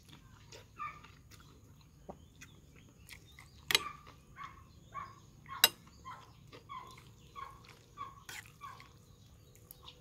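Metal spoon and fork clinking sharply against the bowl twice while noodles are stirred, with a few lighter utensil ticks. Behind it, a bird calls in a run of short notes, about two a second.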